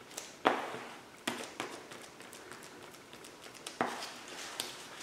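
Plastic spreader working body filler on a disposable mixing-sheet pad, scraping and slapping as the filler is folded together with its hardener. A few sharp taps stand out, the loudest about half a second in and another near four seconds in.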